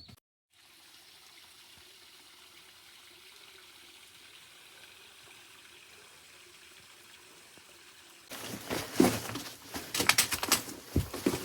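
Faint, steady rushing like flowing water. About eight seconds in, loud irregular knocks and rustling cut in over it.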